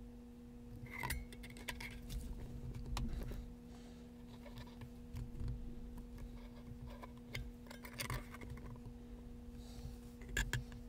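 Faint, scattered small metallic clicks and scrapes of a screwdriver shaft and wire coils being worked against the brass build deck of an RDTA box mod while the coils are positioned. A steady low hum runs underneath.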